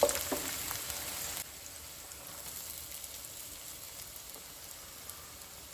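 Sliced onions sizzling in hot oil in a nonstick frying pan, with a few light scrapes of a wooden spatula at first. About a second and a half in, the sizzle drops suddenly to a faint steady hiss.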